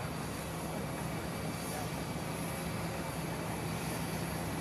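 Jet aircraft running steadily: an even rushing noise with a thin high whine and a low hum, with faint talk underneath.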